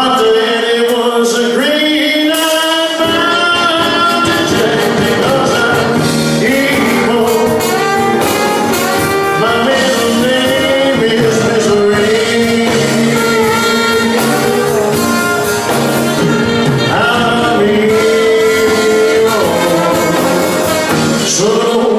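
Live band music with brass and singing.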